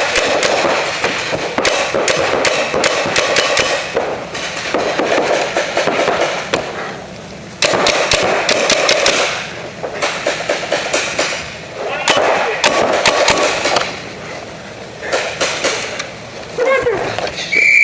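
Paintball markers firing reballs in rapid bursts of sharp shots, several volleys with short gaps between them, echoing in an indoor arena. A whistle starts blowing near the end.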